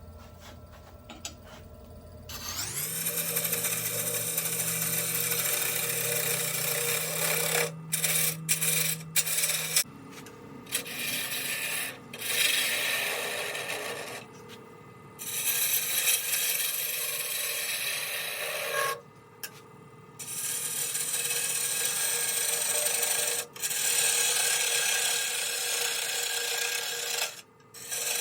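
Wood lathe spinning up about two seconds in, then a spindle gouge cutting into a spinning goncalo alves blank: a continuous scraping hiss of wood being shaved, broken by several short gaps as the tool comes off the wood.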